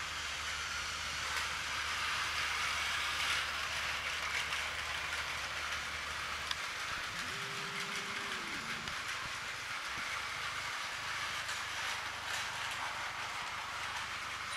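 Several battery-powered Plarail toy trains running on plastic track: a steady whir of their small geared motors with light clicking of plastic wheels over the track joints. A short pitched tone sounds about halfway through.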